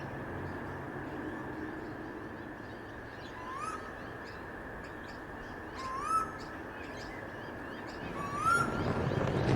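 Night-time ambience sound effect: a bird call that rises in pitch, repeated three times about two and a half seconds apart and louder each time, over a steady background hiss.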